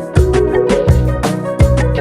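Background music with a steady beat: percussion and pitched instruments.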